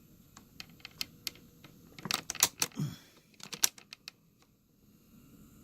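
Irregular clicks and taps from handling the opened-up cassette mechanism of a portable radio/cassette recorder, with a quick cluster of sharp clicks about two seconds in and a few more about a second later.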